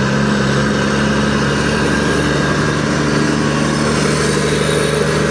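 Steady engine hum of motor traffic heard from a moving motorcycle, over continuous road and wind noise, with a slight change in pitch about halfway through.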